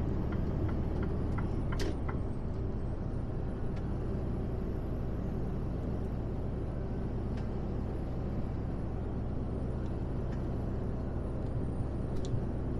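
Mercedes-Benz Actros truck cruising at motorway speed, heard inside the cab: the diesel engine's steady drone under even road and tyre noise, with a faint click about two seconds in.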